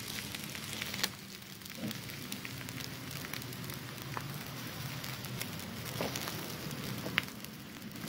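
Eggs frying in oil in a skillet, a steady sizzle with a few small pops and crackles scattered through it, the burner under the pan turned off.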